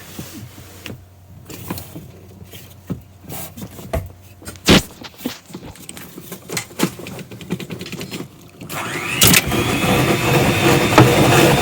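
Panasonic dishwasher's pump motor starting up about three-quarters of the way in, its whine rising in pitch and then running steadily. This is the groaning noise that appeared suddenly in the 11-year-old machine. Scattered light clicks and knocks come before it.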